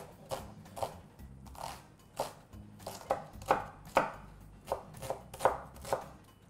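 Chef's knife dicing an onion on a wooden cutting board: a run of about a dozen sharp knocks of the blade on the board, unevenly spaced at roughly two a second.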